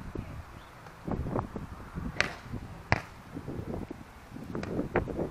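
Several sharp slaps of hands and forearms on a volleyball during play. The two loudest come a little under a second apart, about two and three seconds in, with fainter hits near the end.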